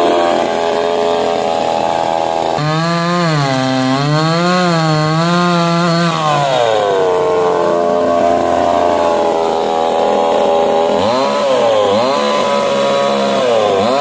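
MIR 8500 two-stroke gasoline chainsaw engine running throughout. Its speed drops about two and a half seconds in and wavers, climbs again around six seconds, then dips twice near the end.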